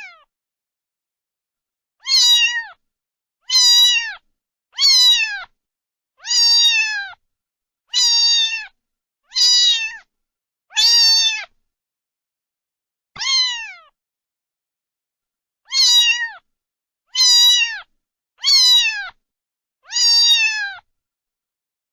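A cat meowing over and over: about a dozen high-pitched meows, each under a second long and falling in pitch at the end, with a longer pause near the middle.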